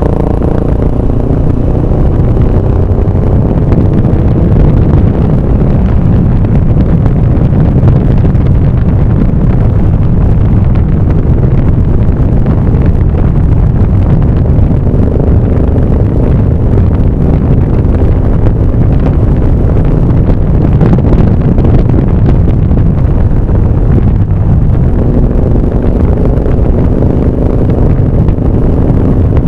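A vehicle driving, heard from on board: a steady, heavy rush of wind and road noise over the microphone, with engine tones rising out of it at times.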